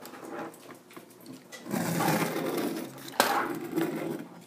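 Toy train cars pushed by hand along a wooden tabletop, their plastic wheels rumbling loudly from a little under two seconds in, with a sharp click a little after three seconds.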